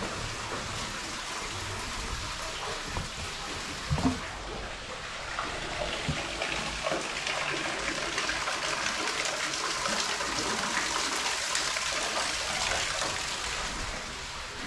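Water running and trickling in a tunnel: a steady splashing hiss that grows louder midway, with one short thump about four seconds in.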